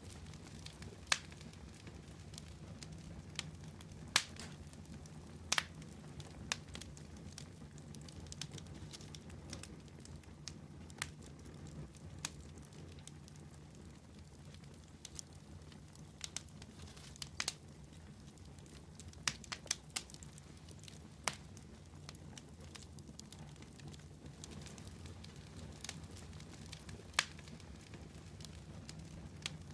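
Wood campfire burning, with irregular sharp crackles and pops every second or two over a low steady rumble.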